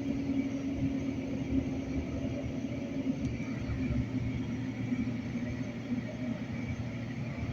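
Light-rail train in motion, heard from inside the car: a steady low rumble with a humming tone that fades about six seconds in.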